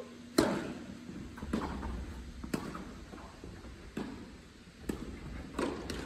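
Tennis ball being struck by rackets and bouncing on a hard court during a doubles rally: a string of sharp pocks about once a second, the first the loudest, each ringing on in the echo of a large indoor hall.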